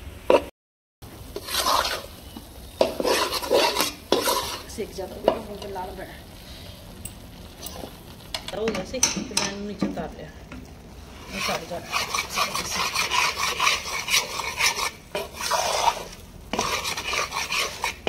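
Metal spoon or spatula stirring and scraping besan as it roasts in ghee in a kadhai, in irregular bursts of strokes, with the ghee sizzling. The sound cuts out completely for a moment just under a second in.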